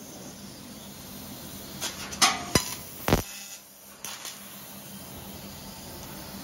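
6000 W laser cutting machine cutting steel plate: a steady hiss with a low hum, broken by a few sharp snaps about two to three seconds in and another near four seconds.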